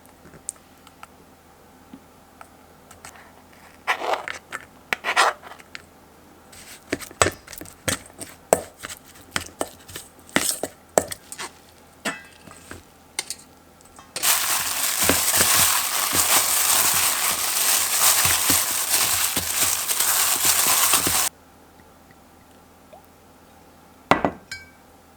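Dishes and utensils clinking and knocking in a scattered run of small impacts, then a kitchen tap running steadily for about seven seconds and shut off abruptly, with a couple more knocks near the end.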